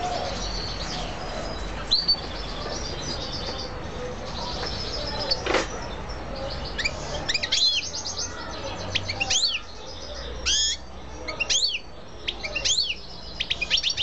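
Caged canary and European goldfinch calling: fast, high trilling chirps through the first half, then a string of sharp rising-and-falling call notes, one or two a second, from about halfway in.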